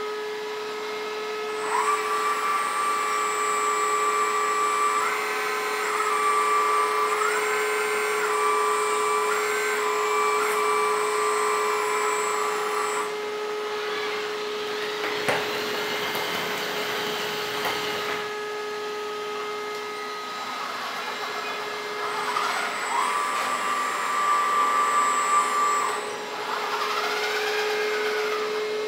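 Hydraulic pump and electric motor of a 1/14 scale LESU Komatsu PC360 RC excavator running with a steady whine. Its pitch steps up and down several times as the arm and grab are worked.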